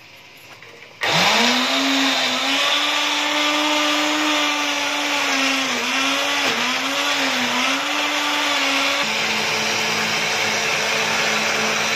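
Electric blender grinding fried onions into a paste. The motor switches on abruptly about a second in, spins up fast, and runs steadily, its pitch wavering as the onions churn, then settles slightly lower about nine seconds in.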